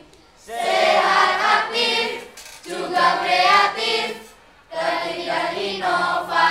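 A choir singing in three phrases, with short pauses between them.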